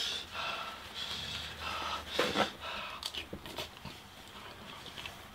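Several hard breaths through an open mouth, in and out, most of them in the first half: panting to cool a mouth burning from very spicy noodles.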